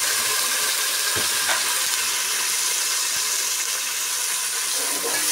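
Sliced onions frying in hot oil in a metal pot, a steady sizzle, while a steel ladle stirs them, with a couple of light knocks about a second and three seconds in.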